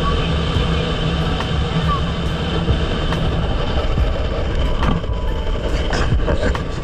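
Boat engine running steadily, a loud even drone with a low hum.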